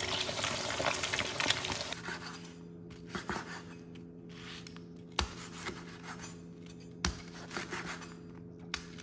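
Pork belly sizzling as it deep-fries in hot oil in a wok. About two seconds in it gives way to a knife cutting the crispy fried pork on a wooden cutting board, with scattered crunches and knocks of the blade on the board.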